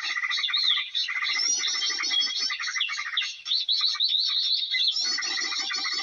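Dense, continuous chatter of many small birds chirping and trilling over one another, with a brief lull about three and a half seconds in.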